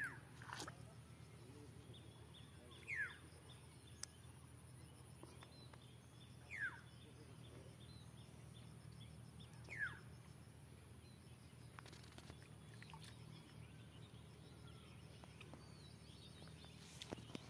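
A bird calling: a short call that slides downward in pitch, repeated four times about three seconds apart, over a faint steady background hum.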